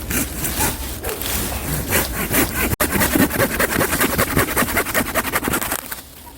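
Rotten pine log being scraped and broken apart to get at the resinous pitch-pine heartwood: a rough scraping crackle of many quick, even ticks that stops shortly before the end.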